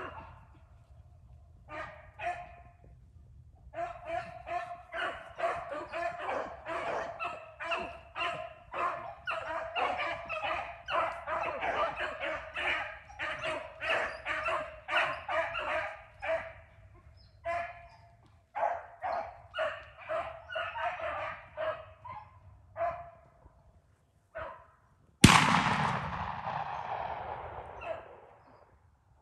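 A pack of beagles baying in rapid, overlapping bursts on a rabbit's track, thinning out in the second half. Near the end a single sudden loud bang that trails off over a few seconds.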